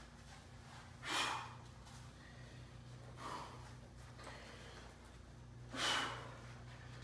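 A man's sharp, forceful breaths, three of them: about a second in, near the middle and near the end, the first and last loudest. This is the effort of straining to bend steel by hand.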